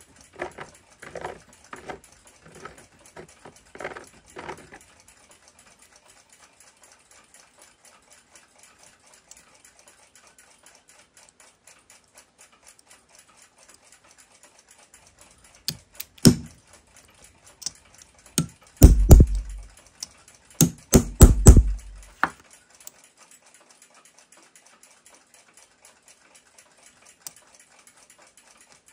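A hand deburring tool scraping the edges of bored holes in a brass clock plate, in about five short strokes. Later comes a sharp click, then a run of loud knocks and rattles as the brass plate and its new bushings are handled and set on a steel stake.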